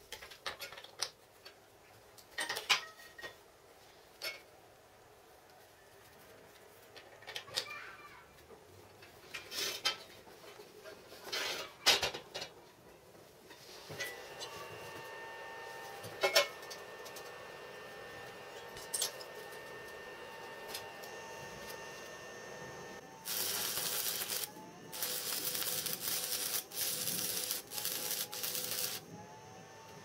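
Steel pieces and the electrode holder clinking and knocking on a steel welding table. About halfway through, a steady hum starts as the homemade welder, built from two microwave oven transformers with cooling fans, is switched on. Near the end comes a stick-welding arc crackling and hissing in several short runs with brief breaks.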